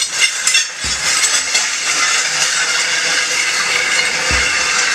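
Plate-loaded steel prowler sled pushed over asphalt: its skids scrape steadily and grittily while the weight plates clink and rattle, with a couple of dull low thumps.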